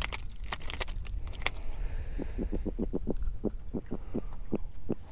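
Male spotted seatrout grunting (drumming) while held out of the water: a quick run of short, low knocking pulses, several a second, starting about two seconds in, after a few sharp clicks.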